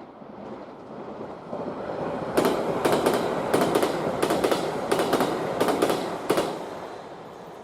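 A train passing close by, its wheels clacking over rail joints in quick pairs for about four seconds. The noise builds up before the clacks and fades away after them.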